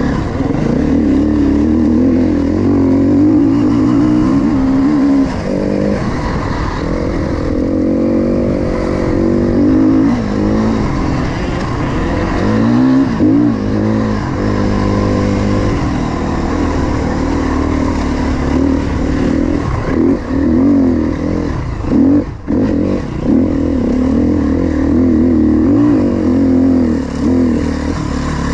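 KTM 350 XC-F four-stroke dirt bike engine revving hard and easing off over and over as it climbs a loose dirt trail, its pitch rising and falling with throttle and gear changes. The throttle drops off briefly about three quarters of the way through before picking up again.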